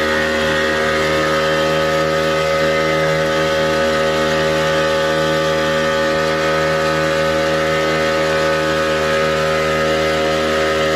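Boat engine running steadily under way, a constant drone that holds one pitch throughout.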